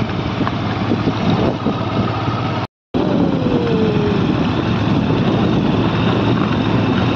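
Motorcycle engine running steadily while riding, mixed with wind and road noise on the microphone; the sound cuts out for a moment about three seconds in.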